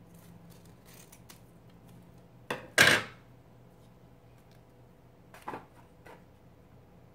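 Scissors set down on a wooden side table with a short double knock about two and a half seconds in, followed later by a couple of fainter knocks.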